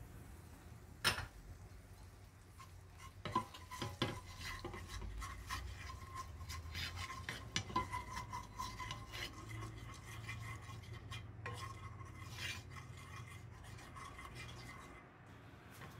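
A spatula stirring and scraping gochujang sauce around a nonstick frying pan in a quick, irregular run of rubbing strokes that thins out near the end. A single sharp knock comes about a second in.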